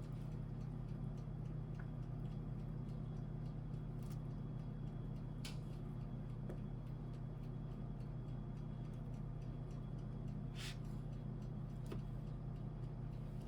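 Steady low hum with scattered light clicks and taps; two sharper clicks come about five and eleven seconds in.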